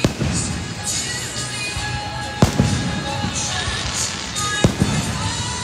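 Aerial firework shells bursting: three sharp bangs about two seconds apart, at the start, about two and a half seconds in and near the end, over music playing.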